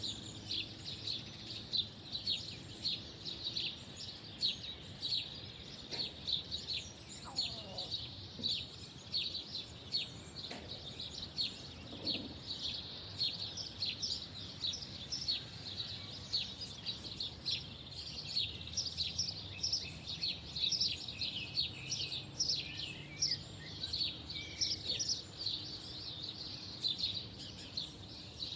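Birds chirping continuously, many short high chirps overlapping each second, over a faint low background rumble.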